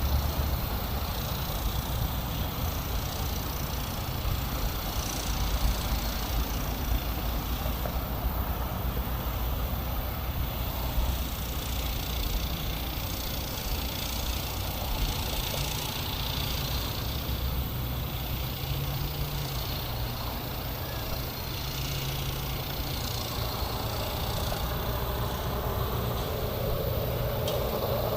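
Steady low rumble of motor vehicles running, with no sudden events.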